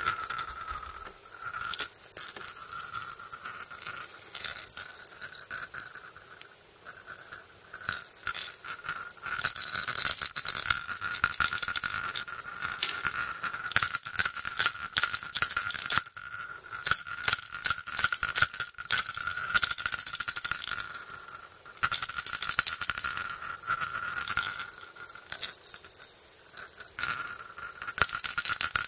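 Anpanman toy maraca shaken by hand, rattling in quick runs with a few short pauses, a thin steady high ring running under the rattle.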